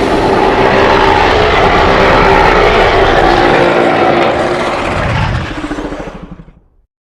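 Carnotaurus roar sound effect: one long, loud, throaty roar with a deep rumble beneath. It breaks into a rattling growl as it fades out near the end.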